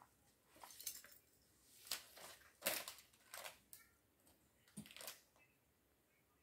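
Small plastic Lego pieces being handled: about six scattered sharp clicks and rustles, dying away after about five seconds.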